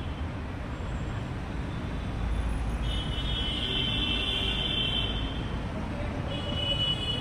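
Busy city road traffic: the engines and tyres of passing vehicles make a continuous rumble that grows louder about two seconds in. Steady high tones sound for about two seconds in the middle and again near the end.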